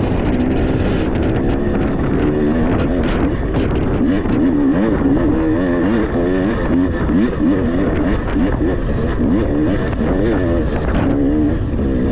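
Dirt bike engine revving up and down as it is ridden, its pitch rising and falling in quick, repeated surges over a steady low rush.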